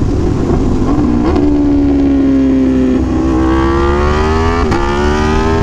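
Aprilia Tuono V4 1100's V4 engine on the overrun as the bike slows, with three clutchless downshifts about a second and a half apart. Each downshift is marked by a short automatic throttle blip from the autoblipper that rev-matches the shift and steps the revs up. Wind rush is heard under the engine.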